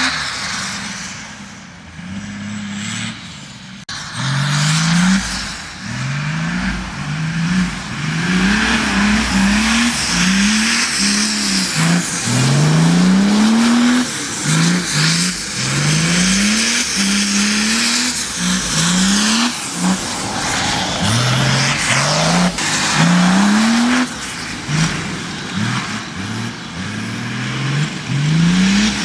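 Mercedes-Benz OM603 straight-six diesel in an off-road buggy, revved hard again and again as the buggy slides around a dirt track; each rev climbs in pitch over about a second before dropping back.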